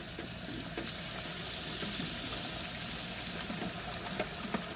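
Breaded fish fillets sizzling and bubbling in hot oil as the wire fry basket is lowered into a deep aluminum fryer pot. The hiss swells about a second in and then holds steady.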